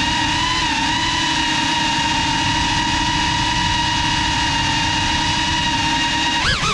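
Motors and propellers of a GEPRC Cinelog 35 FPV cinewhoop drone whining at a steady pitch in flight. Near the end the pitch briefly dips and jumps back up as the throttle changes.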